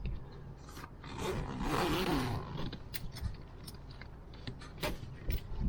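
Zipper on a fabric tool bag being pulled open in one long stroke about a second in, followed by light clicks and rustling as the bag is handled.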